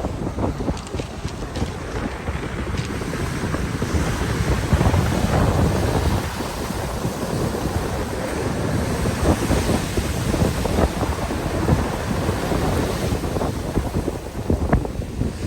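Storm surf on the Black Sea breaking and washing on the shore, with strong wind buffeting the microphone in low, gusty rumbles.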